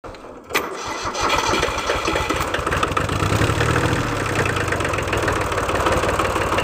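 Diesel tractor engine starting about half a second in and then running steadily with an even, rapid beat.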